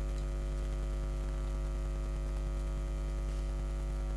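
Steady electrical mains hum, a low drone with a buzzy stack of even overtones above it, unchanging throughout.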